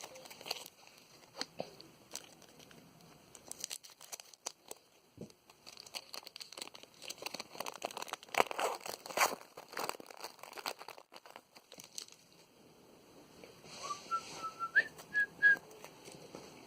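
Trading card pack wrappers and cards being handled, crinkling and rustling, with sharper tearing or crumpling about eight to ten seconds in. Near the end a person whistles a few short notes rising in pitch.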